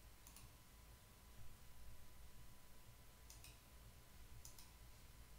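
A few faint computer mouse clicks, spread apart, over near-silent room tone with a faint steady hum.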